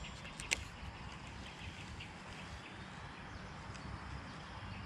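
A single sharp click about half a second in from a Shimano Calcutta Conquest 51 DC baitcasting reel, its handle turned to engage the spool after a cast, then a low steady outdoor background with faint ticks.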